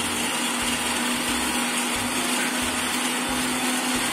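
Electric mixer grinder (mixie) running steadily with a constant motor hum, grinding a wet masala paste of small onions, garlic, spice powders and curry leaves.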